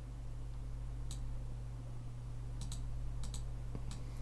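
Scattered short clicks of a computer's input controls, a few in quick pairs, over a steady low electrical hum.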